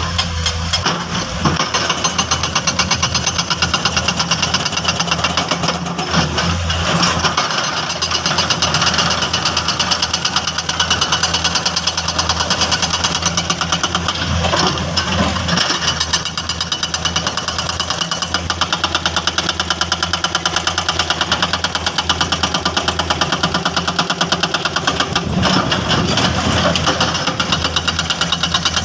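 Excavator-mounted hydraulic breaker hammering in a fast, even series of blows, over the excavator's running diesel engine.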